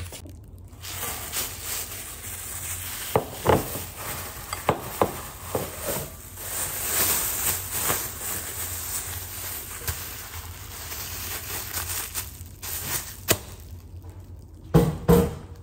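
Thin plastic bag rustling and crinkling as a ball of dough is wrapped in it by hand, with scattered clicks and knocks and a louder knock near the end.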